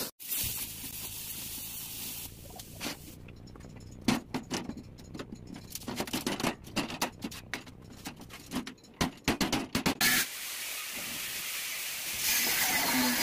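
Irregular metallic clanks and knocks, several a second, as a steel sheet is struck with a hand tool. From about ten seconds in a steady hiss follows, jumping louder near the end, as an angle grinder is worked on the steel plate.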